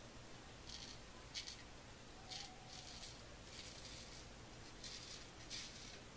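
Billy T. Titan straight razor scraping through lathered stubble in short strokes, a quiet raspy scratch roughly once a second.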